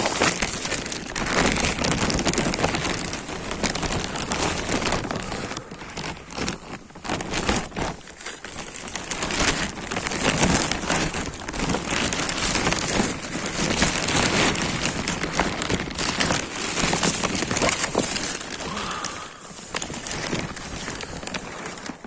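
Plastic sheeting crinkling and rustling close to the microphone as a person crawls under it and settles in, a continuous crackle that swells and eases with the movement.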